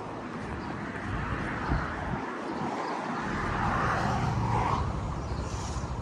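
A vehicle passing on the road alongside, its engine and tyre noise swelling to a peak about four seconds in and then fading away.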